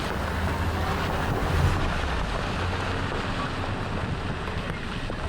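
Steady wind buffeting the microphone, with a low rumble underneath.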